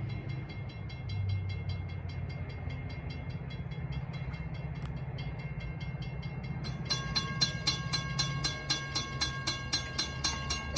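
Railroad grade-crossing bells ringing quickly and evenly as a train approaches; a second, louder bell joins about seven seconds in. The low rumble of the oncoming train runs underneath.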